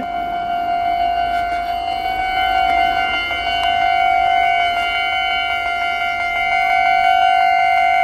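Kintetsu railway level-crossing warning alarm sounding: a loud, steady, unbroken high tone with overtones, which grows a little brighter about two seconds in.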